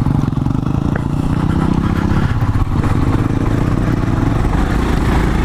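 Royal Enfield Himalayan's 411 cc single-cylinder engine running under way on a dirt track, its exhaust beat pulsing steadily; the engine note shifts a little about two seconds in.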